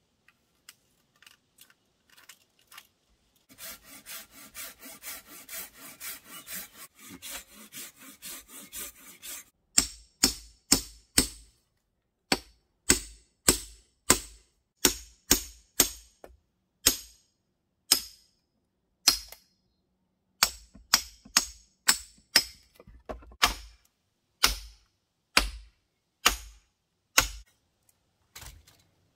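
A handsaw cuts into a wooden plank in quick, even strokes for several seconds. Then a chisel is driven into the wood with sharp, loud blows, about one to two a second, with short pauses.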